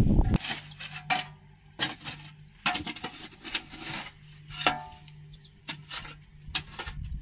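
About ten sharp scrapes and knocks at uneven intervals as mud is dug and cleared by hand from beside a stuck trolley's wheel, over a faint steady engine hum.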